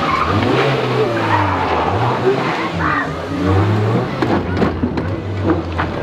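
A classic rally car's engine being driven hard, its note rising and falling several times as the driver revs, lifts and changes gear, with tyre noise as the car slides on the loose stage surface.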